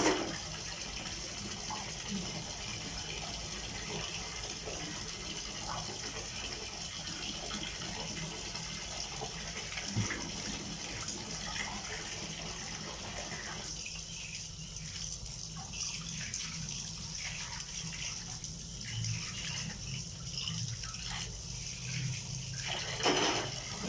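Tap water running and splashing into a plastic basin while pots and pans are washed under it, with a brief knock of cookware now and then. The splashing gets quieter about two-thirds of the way through.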